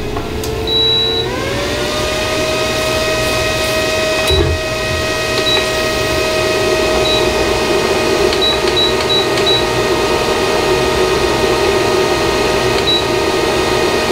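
An induction hot plate's control panel beeps several times in short high beeps as its buttons are pressed to set the temperature. Under the beeps a cooling fan rises in pitch during the first second or so, then runs at a steady whine with an airy hum. There is a light knock about four seconds in.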